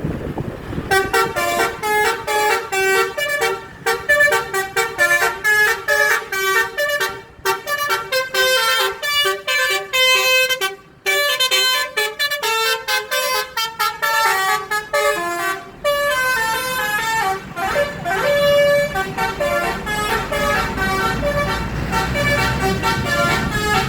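A bus's 'basuri' telolet horn, a multi-tone musical horn, playing a fast tune of short, quickly changing notes. About sixteen seconds in the notes turn slower and longer, and a low rumble comes in underneath.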